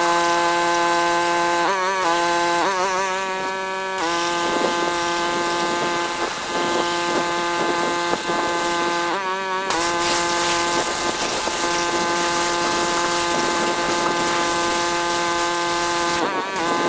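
Pressure washer running steadily, with a high-pressure water jet spraying for most of the time. The machine's pitch wavers briefly as the spray stops and starts, about two and three seconds in, again around nine seconds in, and near the end.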